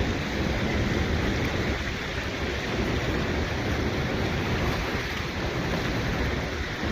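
Fast-flowing river water rushing steadily, with an uneven low rumble underneath.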